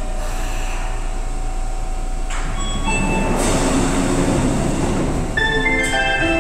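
Seibu 6000-series electric train standing at the platform, its doors and the platform screen doors opening with a rush of air and mechanism noise about two to three seconds in. Near the end a chime of stepped electronic tones starts up.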